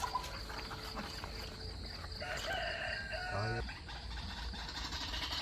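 A rooster crowing once, starting about two seconds in: a drawn-out call that steps down in pitch at the end.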